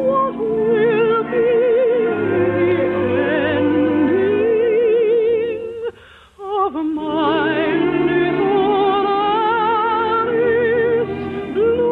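A singer with strong vibrato in an operatic style, with musical accompaniment, from a musical stage show performed for radio. The music breaks off briefly about six seconds in, then starts again.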